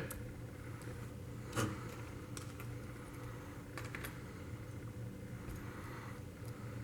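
Faint, scattered small plastic clicks and taps as Cherry stabilizer parts (housing, insert and wire) are handled and snapped together, the loudest about a second and a half in, over a low steady hum.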